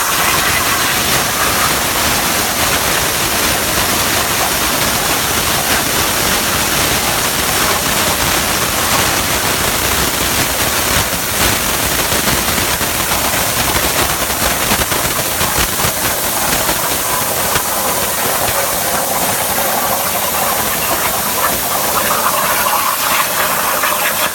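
CNC plasma cutter's torch cutting: a loud, steady hiss.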